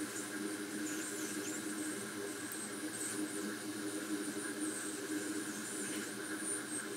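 Hot air rework station's blower running with a steady whir and a faint, wavering high whine.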